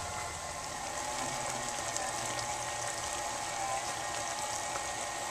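KitchenAid stand mixer running at a steady speed, its motor giving a constant whine as the flat beater turns through a bowl of mashed potatoes.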